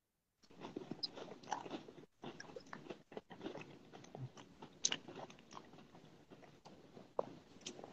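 A person chewing food, with quiet, irregular crunching and small mouth clicks.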